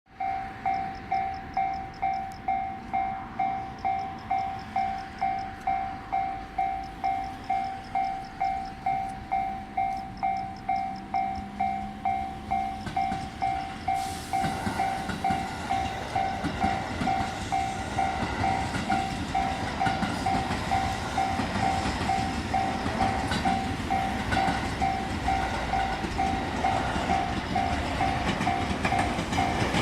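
Japanese railway level-crossing warning bell ringing steadily at about two strokes a second, the signal that the crossing is closed for an approaching train. About halfway through, a passing train's running noise and wheel clatter rise under the bell and continue to the end.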